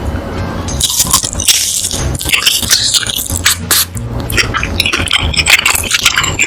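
Close-miked eating sounds: irregular wet chewing, biting and sticky mouth clicks from cheesy food, with music playing underneath.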